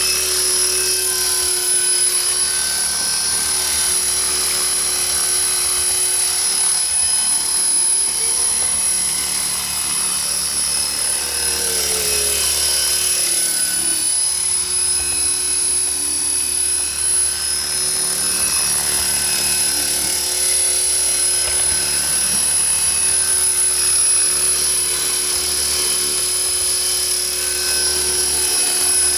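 Remote-control model helicopter flying and hovering, its motor and rotor making a steady whine that holds throughout.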